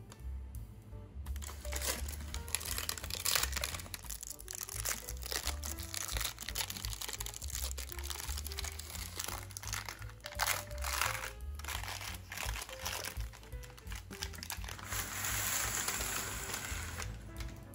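Baking paper crinkling and rustling as it is peeled off the sides of a baked loaf, in many short rustles with a longer, denser rustle near the end, over background music.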